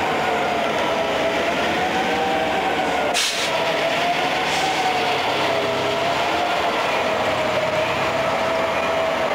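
Diesel-electric freight locomotives passing close at low speed, their engines running with a steady, slowly wavering whine over the rumble. A short hiss cuts in about three seconds in.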